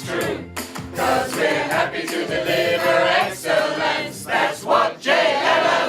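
A group of voices singing together in chorus, like a choir.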